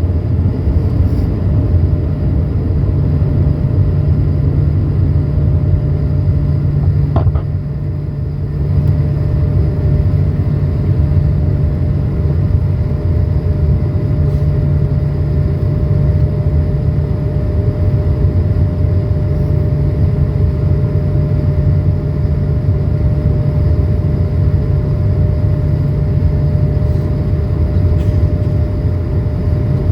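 Cabin noise of an Airbus A220-300 in its initial climb after takeoff, its Pratt & Whitney PW1524G geared turbofans at climb power: a loud, steady low rumble with a steady hum on top. About seven seconds in there is a brief click and the noise dips for a second or so.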